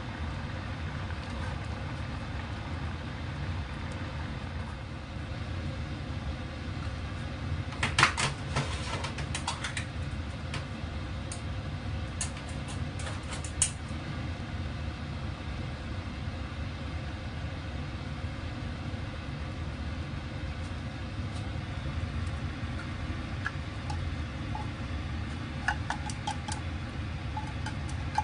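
Kitchen food-preparation sounds over a steady low hum: scattered sharp clicks and clatter of a knife, utensils and a tin can being handled. There is a cluster of clicks about eight seconds in, another around twelve to fourteen seconds in, and a few more near the end.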